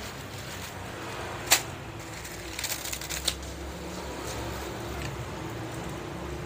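Bamboo incense sticks clicking and clattering as they are handled: one sharp click about a second and a half in, then a short cluster of lighter clicks around three seconds, over a steady low hum.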